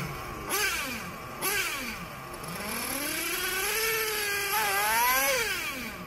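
Small two-stroke glow (nitro) engine of a 1/8-scale RC buggy revving with the car held off the ground: two quick throttle blips, then a slower climb in pitch to a peak about five seconds in before it drops back.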